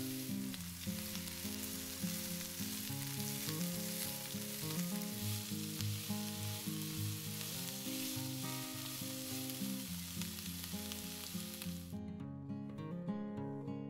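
Diced onions sizzling in olive oil in a nonstick frying pan, stirred with a spatula. The sizzle cuts off abruptly near the end.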